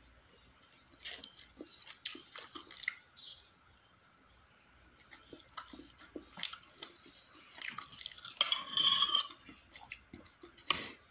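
Eating sounds: chewing, with small clinks of a fork and spoon against a plate. About eight and a half seconds in there is a brief, louder pitched sound, and a sharp noise comes just before the end.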